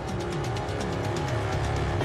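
Background music with held tones, used as a news-bulletin music bed.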